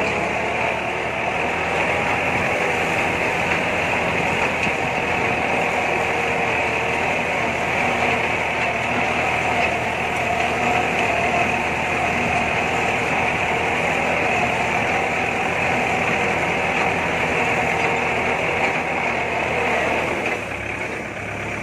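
Compact tractor's engine running steadily under load while it pulls a disc plough through dry paddy soil.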